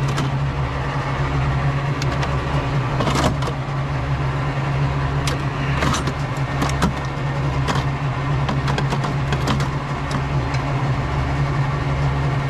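Scattered clicks and knocks of metal and plastic parts being handled as a circuit board is worked out of a large network printer, over a steady low mechanical hum that pulses at its lowest layer.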